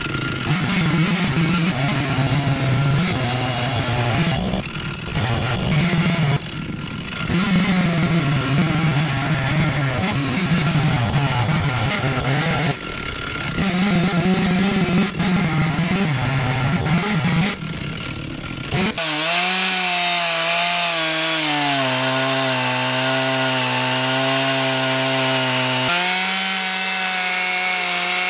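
Guitar-driven background music, then a cut to a Stihl two-stroke chainsaw running flat out as it rips through a walnut round in an Alaskan chainsaw mill. Its note sinks for a few seconds under load and then rises again near the end.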